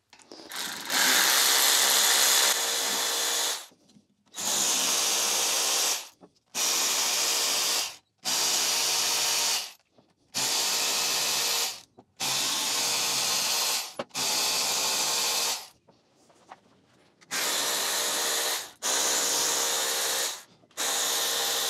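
Cordless ratchet running in about ten short runs, one to three seconds each, with brief pauses between: undoing the 8 mm bolts of a Mini Cooper S N14 engine block's lower section one after another.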